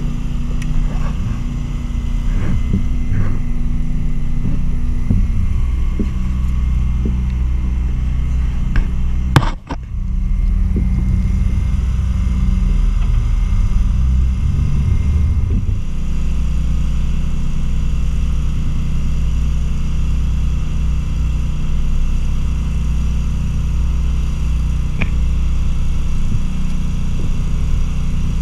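An electrofishing boat's engine running with a steady low drone, its pitch shifting a little a few times. A single sharp knock about a third of the way in.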